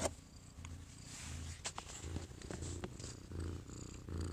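Domestic cat purring close by, a low steady purr that swells and eases with each breath.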